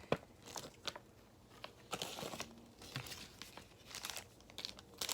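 Toy packaging crinkling and rustling in the hands, in irregular short bursts with a few sharp clicks, the sharpest just after the start.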